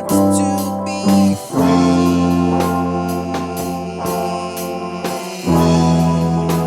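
Instrumental passage of a song: sustained chords that change about a second and a half in and again near the end.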